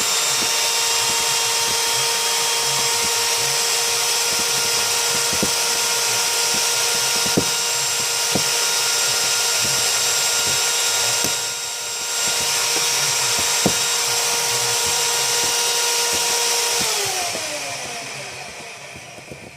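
Cordless drill/driver running at a steady high speed with a constant whine and scattered light ticks, dipping briefly about twelve seconds in, then released and winding down with a falling pitch near the end.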